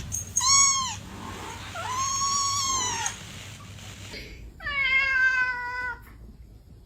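Domestic cat meowing three times: a short call, a longer drawn-out one, then a lower call that falls in pitch.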